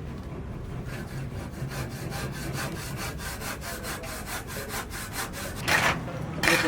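Hand sawing: rapid, even rasping strokes, about six a second, with two louder, longer scrapes near the end.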